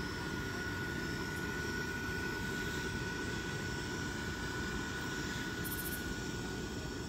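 Steady whir of the electric blower fans that keep Halloween yard inflatables inflated, a constant low rush with a thin high whine held on one pitch.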